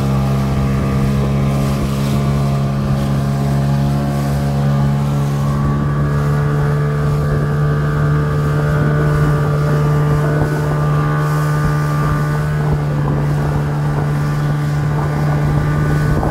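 Speedboat engine running steadily at cruising speed, a constant drone, with wind buffeting the microphone.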